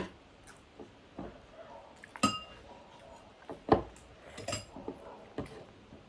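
Cutlery clinking against plates and bowls during a meal: several separate clinks, one about two seconds in ringing briefly, the loudest a little later.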